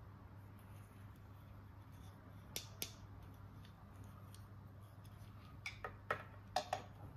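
A toy mini cabin and its packaging being handled by hand: two sharp clicks about two and a half seconds in, then a quick run of four or five clicks and snaps near the end, over a faint steady low hum.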